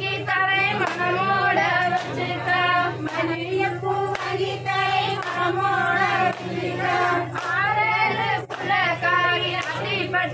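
Women's voices singing a kummi folk song together, with a sharp hand clap about once a second keeping the beat of the dance. A steady low hum runs underneath.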